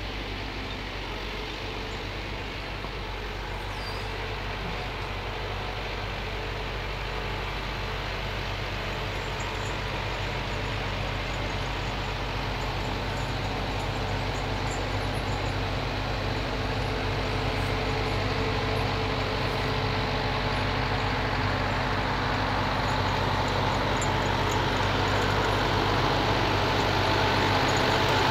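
Diesel engine of a Ponsse forestry machine running steadily and growing louder as the machine drives closer.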